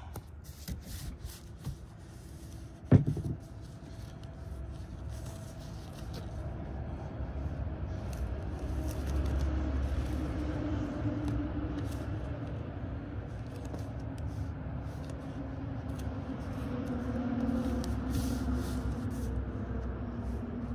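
Masking tape being handled and pressed down onto canvas, with faint rustles and crinkles and one sharp snap about three seconds in. Under it runs a steady low hum that swells twice.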